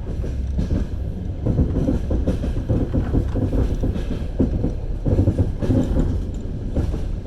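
Train wheels clattering over rail joints: repeated clicks and knocks over the steady low rumble of a moving train.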